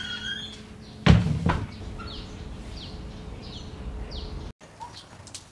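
Wooden double doors pulled shut, closing with two loud thuds about half a second apart a little over a second in. Short chirps repeat faintly afterward.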